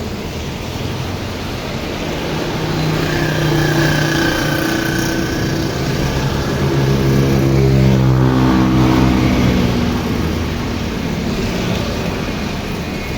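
A motor vehicle passes by: its engine hum grows louder to a peak about eight seconds in, then drops in pitch as it moves away. Steady rain noise runs underneath.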